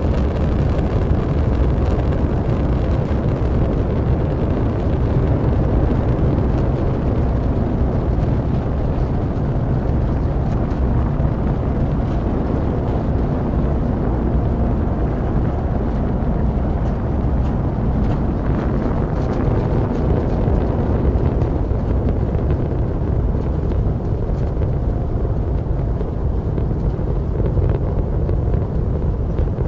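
Space Shuttle's solid rocket boosters and main engines firing during ascent: a loud, steady, deep rumble.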